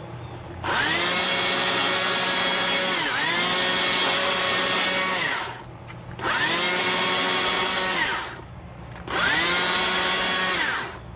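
Battery-powered electric chainsaw run in three bursts of about five, two and two seconds. At each start the motor whine rises to speed and at each release it winds down. In the first burst the pitch dips briefly once.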